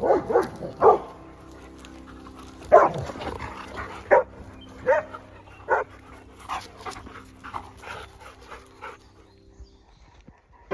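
Bernese mountain dogs barking in short, sharp barks: a quick run of three at the start, then single barks every second or so, growing fainter after about six seconds and stopping near the end.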